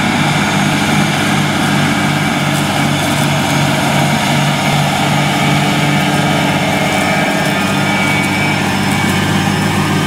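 John Deere 8370R tractor's 9.0-litre six-cylinder PowerTech PSX diesel running steadily under load while pulling a six-furrow Lemken Vari-Diamant plough through the soil.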